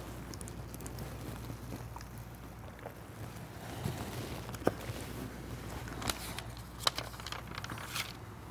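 Studio room tone: a low steady hum under faint hiss, with a few soft clicks in the second half.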